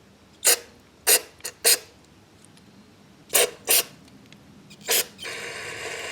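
Aerosol carburetor cleaner sprayed in about seven short spurts, then a longer steady spray near the end, blasting through a carburetor's passages that are clogged with gelled old fuel.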